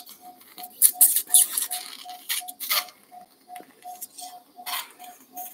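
A surgical anaesthesia monitor beeping steadily, nearly three short beeps a second at one pitch, the pulse tone tracking the anaesthetised dog's heartbeat. Irregular rustles and sharp clicks of handling sound over it and are the loudest sounds.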